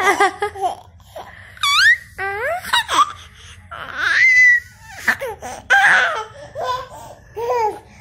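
Young child laughing and squealing in short high-pitched bursts, with one longer held squeal about four seconds in.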